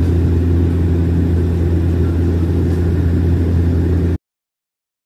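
Turboprop airliner's engines and propellers droning steadily in flight, heard from inside the passenger cabin as a loud, even low hum. It cuts off suddenly about four seconds in.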